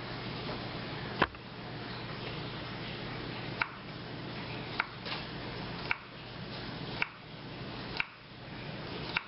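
Small serrated knife slicing through a peeled garlic clove and tapping down on a wooden cutting board, seven sharp taps about a second apart, over a steady low room hum.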